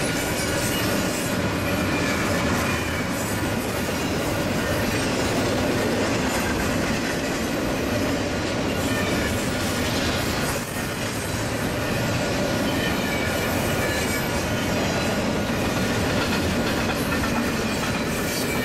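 Double-stack container well cars of a long freight train rolling steadily past, the wheels rumbling and clacking over the rail joints. Faint steady wheel squeal runs over the rumble.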